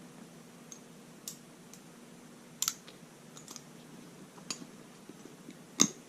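Hand tools clicking and tapping against each other and the table as they are shifted and slotted into a tool roll: a handful of sharp, scattered clicks, the loudest one near the end.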